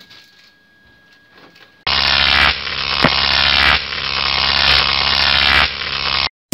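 Electric shock sound effect: a loud, harsh buzzing crackle of electricity that starts suddenly about two seconds in and cuts off abruptly near the end.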